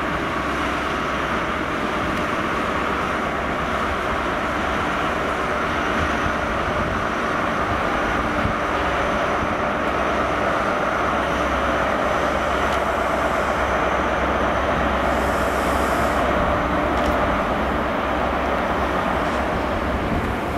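Steady diesel engine noise from a GWR High Speed Train's Class 43 power car as the train moves slowly off.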